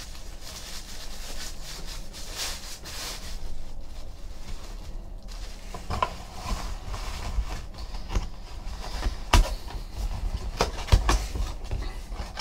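Handling noise as a baseball in a velvet bag is packed into a small cardboard box. Soft rustling of cloth, then from about halfway a series of light knocks and taps of cardboard, with a sharper knock near the end as the box flaps close.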